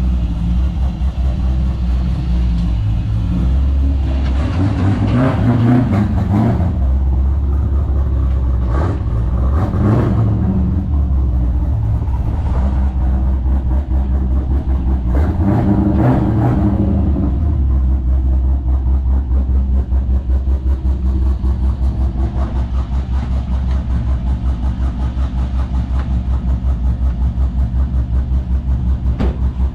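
Car engine with a newly installed custom-ground camshaft, just started for the first time, idling with a choppy lope. It is revved up three times, about 5, 10 and 16 seconds in, and settles back to the uneven idle in between.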